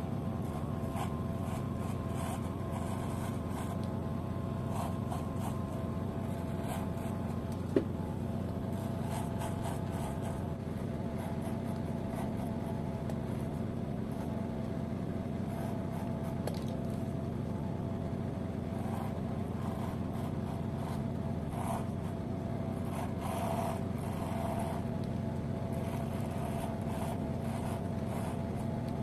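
Electric hair clippers running with a steady buzz as they cut hair, with one sharp click about eight seconds in.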